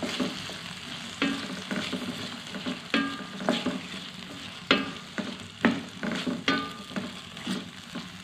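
Chopped capsicum, tomato and onion sizzling in oil in a steel kadai while a spatula stirs, scraping and knocking against the pan about once a second; a few strokes ring briefly. The vegetables are being sautéed until the capsicum softens.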